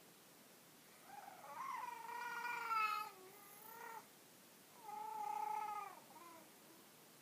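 Cat meowing in two long, drawn-out calls: the first lasts about three seconds with a wavering pitch, and the second is a little under two seconds.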